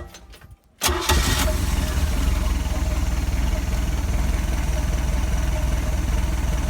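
Mercruiser 3.0-litre inline four-cylinder marine engine running at a steady idle, coming in abruptly about a second in.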